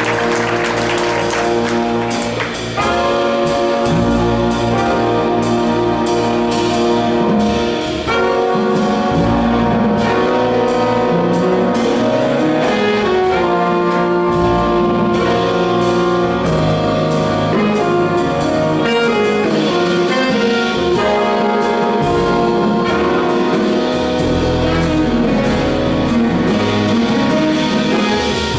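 Jazz big band playing, saxophones and brass sounding together in sustained chords; the band gets louder about three seconds in.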